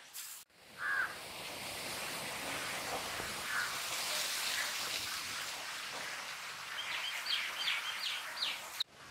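Birds calling over a steady outdoor hiss: a couple of single calls, then a quick run of about five short falling calls near the end.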